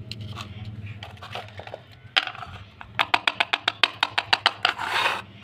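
Hard plastic toy pieces clicking and tapping as they are handled and set down on a stone floor, then a quick run of clicks, about five a second, from the buttons of a small blue plastic toy being pressed, with a short rush of noise near the end.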